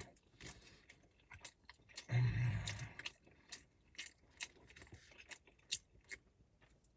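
Close-up eating sounds: a person chewing food, with many small wet mouth clicks and a short louder noise about two seconds in.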